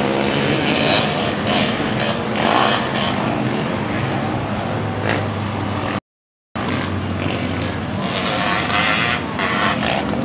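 Motocross dirt bike engines racing around the track, heard from afar as a dense, steady engine noise. The sound cuts out completely for about half a second midway through.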